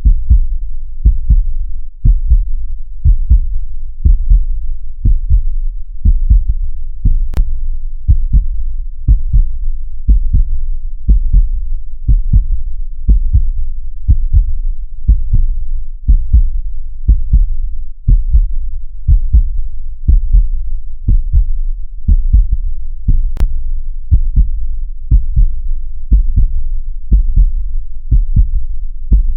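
Heartbeat: deep, steady lub-dub thumps in pairs, about one beat a second.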